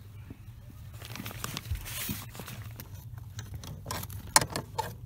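Hands working on a clutch master cylinder and its hydraulic fitting under a truck's dashboard: scattered small clicks and taps, with a few sharper metallic clinks about four seconds in, over a steady low hum.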